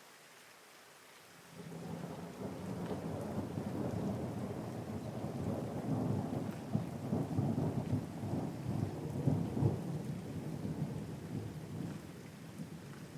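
Rolling thunder over steady rain. The rumble sets in about a second and a half in, rolls on with crackling peaks that are loudest past the middle, and dies down near the end, leaving the rain.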